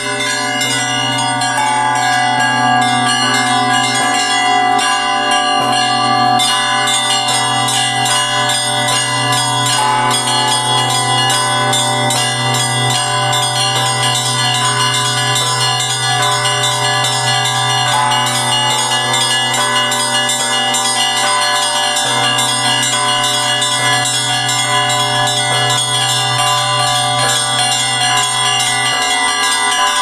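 Russian Orthodox bell ringing (zvon) on a hand-rung wooden frame belfry: small bells struck in a fast, continuous pattern over the deep, steady hum of a large bell.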